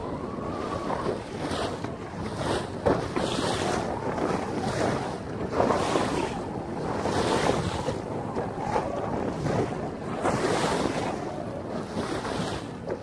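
Waves splashing against the bow of a small boat, rising and falling every second or two, with wind buffeting the microphone.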